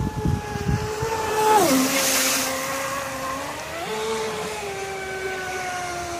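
Traxxas Spartan RC speed boat's brushless electric motor whining under throttle on a 6S LiPo pack. The whine drops in pitch about a second and a half in, a short hiss follows, and around four seconds in the whine jumps back up and then slowly sinks in pitch as the boat runs on.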